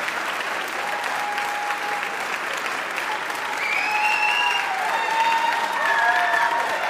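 Audience applauding, steady clapping with a few cheers rising over it and growing a little louder after the halfway point.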